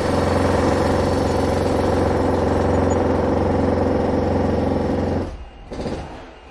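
Heavy machinery engine running loud and steady, then dropping away sharply about five seconds in, with a brief swell just after.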